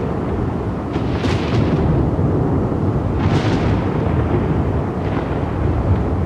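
Thunder: a continuous deep rumble with sharp crackling claps about a second in, again just past three seconds, and more faintly near five seconds.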